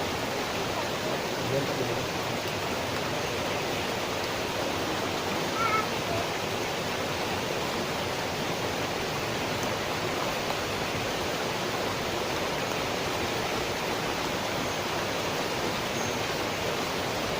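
Steady, even hiss of water, as of light rain or flowing river water, with a brief faint chirp about six seconds in.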